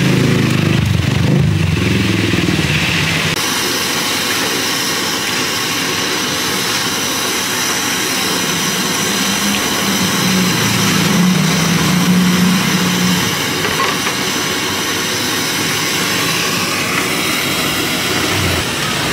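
Banana slices deep-frying in a wok of hot oil, giving a steady sizzle that grows brighter about three seconds in. Under it runs a louder, low engine-like rumble that wavers in pitch.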